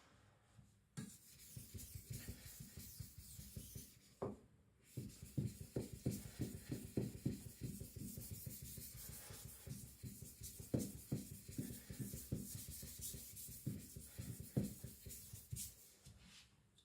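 Steel blade of a Victorinox Chinese cleaver rubbed back and forth on a whetstone in quick, repeated scraping strokes, with a short break about four seconds in.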